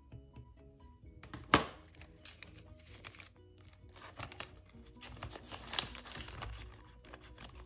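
Paper bills and a clear plastic zipper pocket in a ring binder being handled, making crinkling and rustling with a sharp click about a second and a half in. Soft background music plays throughout.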